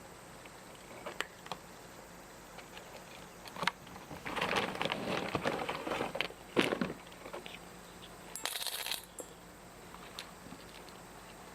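A cat chewing, a run of crisp crunching clicks that comes in scattered bites and gets dense and loudest about four to seven seconds in. A short hissing rustle follows about eight and a half seconds in.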